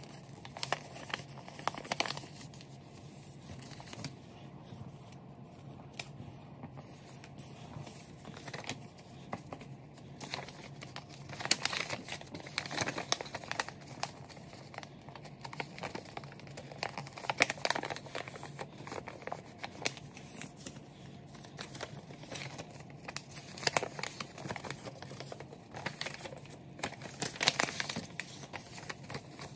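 A sheet of printer paper being folded by hand: rustling and crinkling as it is bent over, with sharper brief rasps from time to time as the folds are pressed flat.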